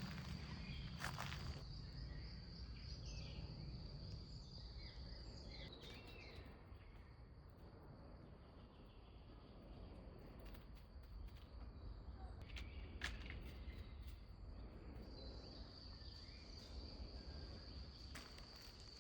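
Quiet outdoor ambience of an insect's steady high trill, which stops about six seconds in and comes back near the end, with a few scattered footsteps and faint short chirps.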